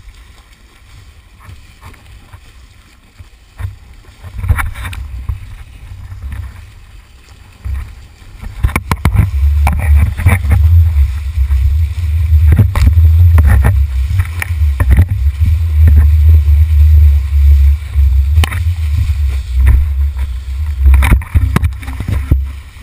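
Wind and rushing water buffeting the microphone of an action camera as a kiteboard planes fast over the sea. It is a deep, low rumble that grows much louder about eight seconds in, with sharp knocks from spray and splashes hitting the camera housing.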